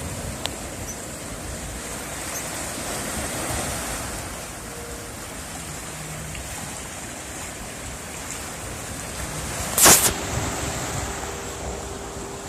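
Ocean surf washing steadily against a rocky shore, with one sharp, loud knock about ten seconds in.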